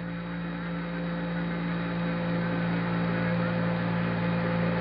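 Open Apollo 11 radio downlink from the lunar surface: steady static hiss with a constant low hum and a few fainter steady tones, growing slightly louder.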